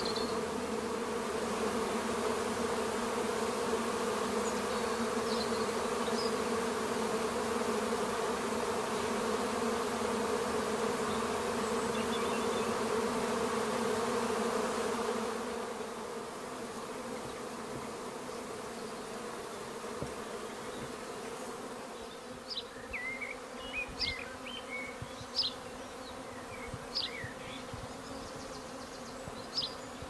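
Steady, dense buzzing of a large honey bee swarm massed on and around a hive as the bees move inside. It becomes quieter about halfway through. A few short high chirps stand out in the last several seconds.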